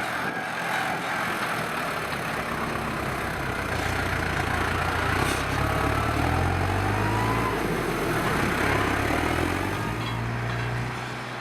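New Holland T6010 tractor's diesel engine running under load, growing louder through the middle and easing off near the end, its pitch rising and falling.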